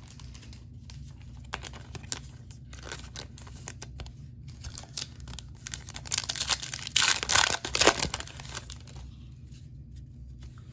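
A foil-wrapped trading card pack being torn open, its wrapper crinkling loudly a little past the middle for two to three seconds.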